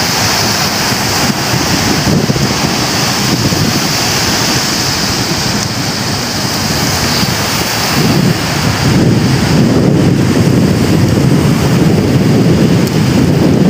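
Sea surf washing onto a sandy beach, with wind buffeting the microphone; the wind rumble gets heavier about eight seconds in.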